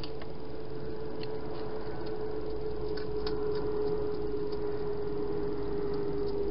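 Wild hedgehog feeding from a bowl, its chewing heard as faint, irregular small clicks. The loudest sound is a steady hum that runs under it.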